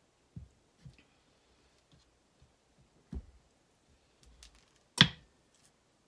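A wire soap cutter with a wooden frame slicing a loaf of handmade soap: a few soft low thuds as the loaf is handled and pushed into place, then a sharp, loud clack about five seconds in as the frame comes down through the soap onto the cutter's base.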